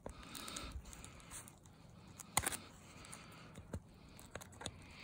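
Faint rustling and scratching of fingers working the nylon cover and aramid fibre of a ballistic vest, prying at a bullet stuck in the fibre, with a few small clicks, the loudest about halfway through.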